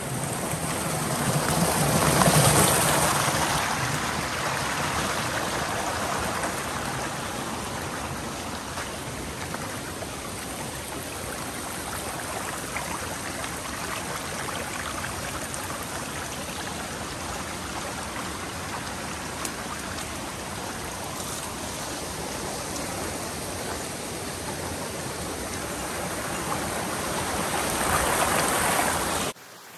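Rushing water of a mountain stream, a steady hiss that swells about two seconds in and again near the end, then cuts off suddenly.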